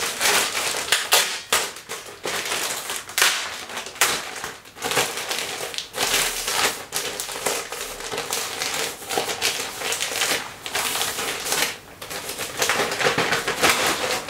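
Silver plastic mailing bag crinkling and crackling in the hands as it is handled and pulled open, an unbroken run of sharp crackles and rustles.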